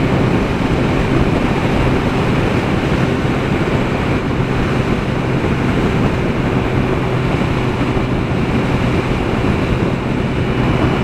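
Motorcycle cruising at highway speed: steady wind noise buffeting the microphone over the engine running at an even pitch.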